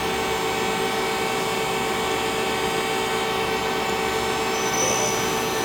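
Ace LT-20 CNC lathe running, a steady machine hum carrying several steady tones, with a faint high whine coming in near the end.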